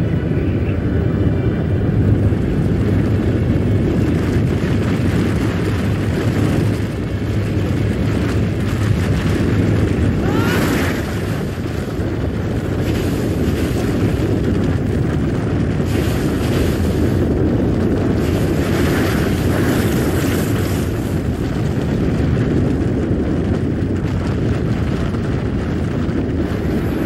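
Low, steady rumble of a snow avalanche sliding down a mountainside, with brief hissing swells of rushing snow.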